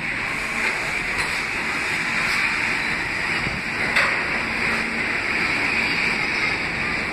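New York City subway train pulling into the station and running past along the platform: a steady, loud rushing noise, with a single sharp click about four seconds in.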